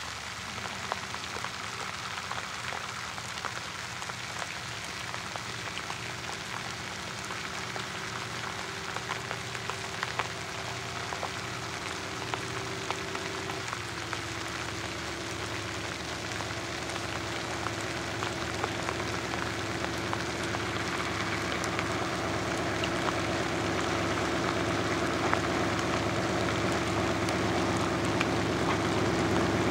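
Lxd2 narrow-gauge diesel-hydraulic locomotive running as it hauls a wagon, growing steadily louder as it approaches, with rain falling throughout. The engine's tone steps down a little about halfway through.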